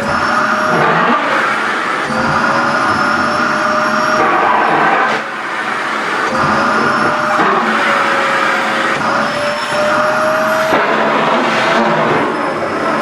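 Vacuum cleaner running steadily as it sucks at a skirt's fabric: a rush of air with a motor whine that shifts in pitch several times, and the loudness dipping briefly about five seconds in.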